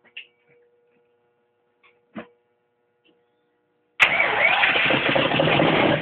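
Rebuilt twin-turbo Ford 351 Windsor V8 being cranked on its first start attempt. The loud cranking starts suddenly about four seconds in and stops after about two seconds, after a few faint clicks.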